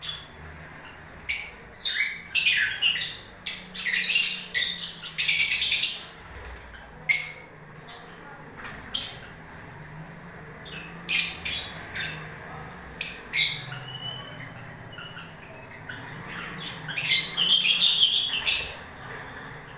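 Lovebirds calling: short, shrill chirps and squawks, bunched in busy flurries a couple of seconds in and again near the end, with single calls scattered between.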